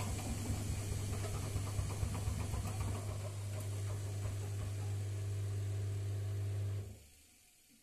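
Front-loading washing machine spinning its drum fast on an unbalanced load, a steady low hum with rumble and vibration, rougher in the first few seconds. The sound drops away sharply about seven seconds in.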